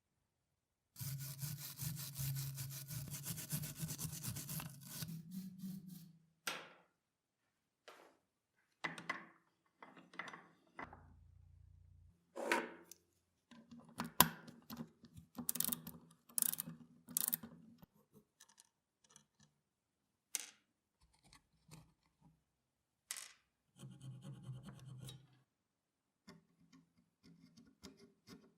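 Workshop hand work on old tool parts: steady scraping or rubbing for about five seconds, then a scattered series of sharp clicks and knocks, with another short stretch of rubbing near the end.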